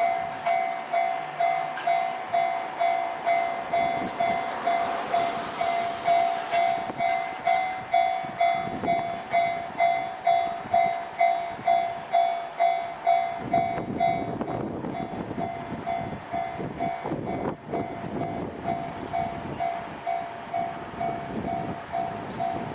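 Japanese railway level-crossing warning bell ringing steadily at about two strikes a second. About 14 seconds in, a train begins passing over the crossing, its wheels rumbling and clattering under the bell.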